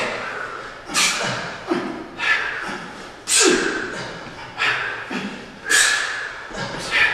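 Forceful breaths from several men swinging kettlebells, one about every second, loosely in time with the swings.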